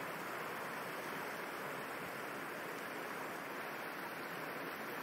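Steady rush of running water from a lake's outlet stream.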